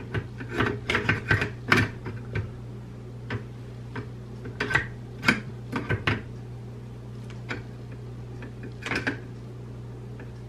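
Light clicks and knocks of a 9mm Draco NAK-9 AK-pattern pistol's parts being handled and fitted together, in a quick cluster at first and then one every second or so.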